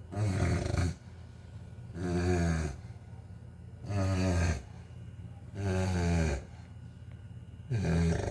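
Chow Chow dog snoring: five pitched snores, each under a second long, coming about every two seconds.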